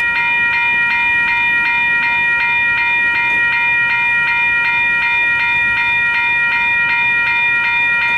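Railroad grade-crossing bell ringing steadily at about four strokes a second, over the low rumble of a freight train's boxcars rolling past.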